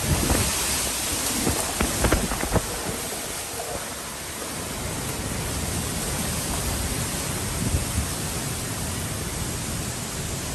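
Hurricane wind and rain making a steady loud rushing hiss. Wind buffets the microphone in a few gusts during the first few seconds.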